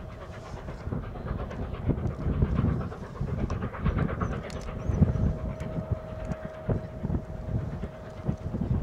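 Steam locomotive working a passenger train, heard from a distance, with wind gusting on the microphone.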